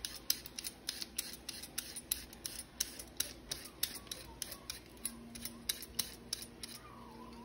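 Handheld vegetable peeler scraping down a raw carrot in quick, even strokes, about three a second, shaving off thin strips.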